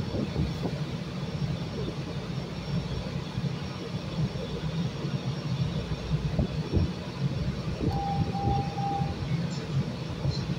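A CTA 5000-series rapid-transit railcar standing at the platform with its doors open, its onboard equipment giving a steady low hum. A short beeping tone sounds about three times around eight seconds in.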